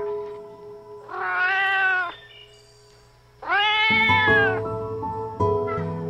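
Tabby cat meowing twice, two long meows each rising then falling in pitch, about two seconds apart, over background music.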